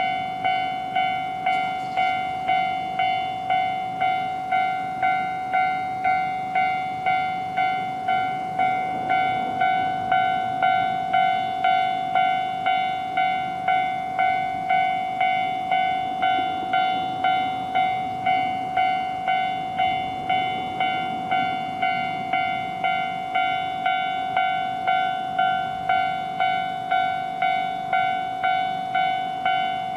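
Japanese level-crossing warning bell ringing "kan-kan" without a break, about one and a half strikes a second, signalling an approaching train. A low train rumble sits underneath from about a quarter of the way in until past the middle.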